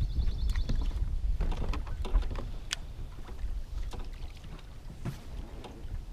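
Water lapping against a fishing boat's hull, with wind rumbling on the microphone. A fishing reel gives a quick run of light clicks near the start, and a few scattered taps follow.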